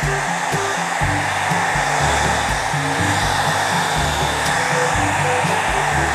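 Handheld electric hair dryer blowing steadily while drying a wet monkey's fur, with background music underneath.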